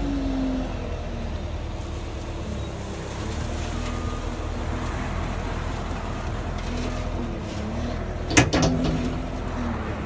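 Front loader's engine running steadily, its pitch dipping and rising while the bucket tips, with loose mulch pouring from the bucket into a dump trailer as a rushing hiss. A few sharp knocks sound about eight and a half seconds in.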